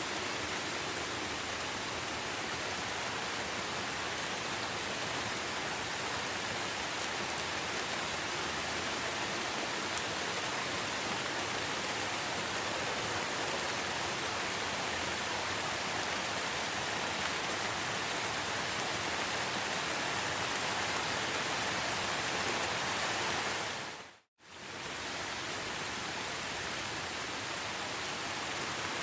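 Steady rainfall in a rainforest, an even hiss. About 24 seconds in it fades out to silence for a moment and fades back in.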